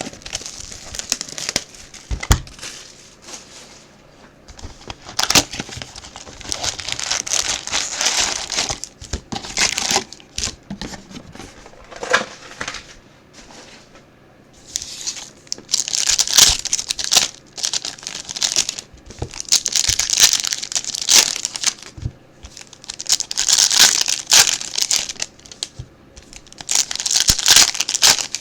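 Plastic wrapping on a box of football trading cards and its card packs being torn open and crinkled by hand, in repeated bursts of a few seconds each.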